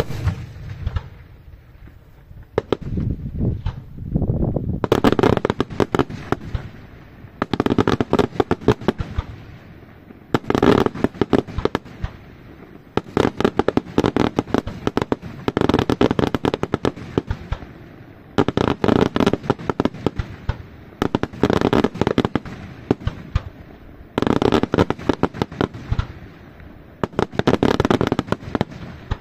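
Daytime aerial fireworks: shells burst overhead into showers of small reports, heard as repeated salvos of rapid crackling. Each rattling volley lasts a second or two and a new one comes every few seconds.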